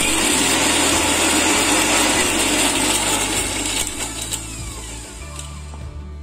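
Electric mixer grinder running in a short burst to grind chutney ingredients. It is switched off about four seconds in, and its motor whine falls as it spins down, stopping about a second later.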